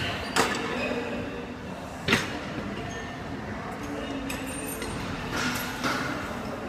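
Sharp metallic clanks of gym weights, the two loudest about two seconds apart near the start and softer ones later, over the steady background noise of a busy gym.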